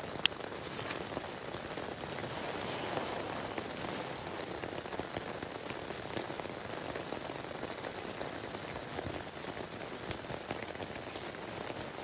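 A steady, even hiss of outdoor ambience with no voice, and one sharp click shortly after the start.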